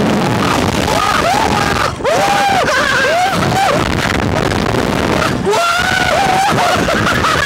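Two men screaming and yelling aboard a reverse bungee (slingshot) ride, in long rising-and-falling shouts with short breaks about two seconds in and again past the middle, over a steady rush of wind on the microphone.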